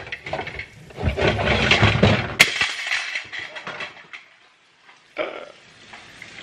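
Metal pots and glass lids clattering and clinking as they are moved around in a cabinet, ending in a sharp clink about two and a half seconds in. After a quiet moment, a steady sizzle of meat frying in hot grease starts near the end.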